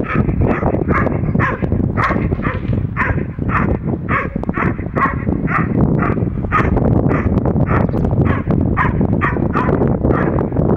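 A Dobermann barking rapidly and continuously, about two to three barks a second, as it lunges on its leash at a training helper: the steady, sustained barking of a dog engaging the decoy in protection work.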